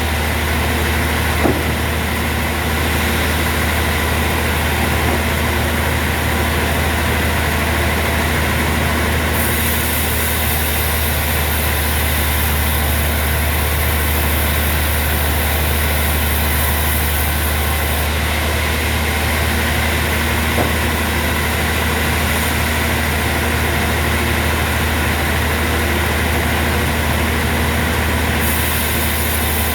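Sawmill machinery running steadily, a constant deep engine drone that does not rise or fall, with a faint click twice.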